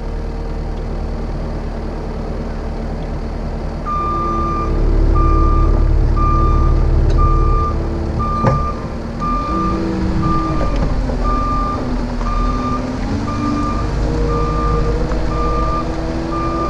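Cat 279D compact track loader's diesel engine running, its note dropping and climbing again with throttle and load. About four seconds in its backup alarm starts, beeping about once a second as the machine reverses. A single sharp knock sounds about halfway through.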